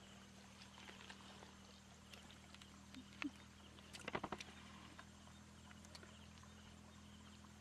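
Mostly quiet with a steady low hum. A hand groping among fish in shallow muddy water makes a few faint wet slaps and splashes, a short cluster of them about four seconds in.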